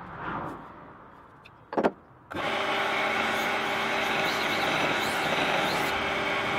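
Record Power BDS150 belt and disc sander switching on with a click about two seconds in, then running steadily as a thin strip of wood is sanded against its belt.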